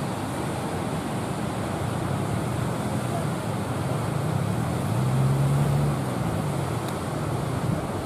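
Ocean surf breaking and wind on the microphone, a continuous rushing noise. A low hum runs underneath it and swells for about a second past the middle.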